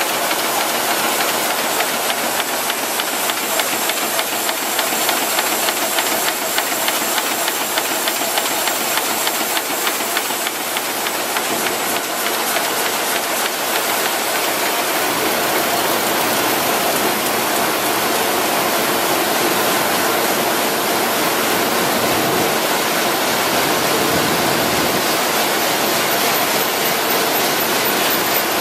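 RYOBI 758P eight-colour sheetfed offset press running: a steady mechanical clatter with a continuous hiss.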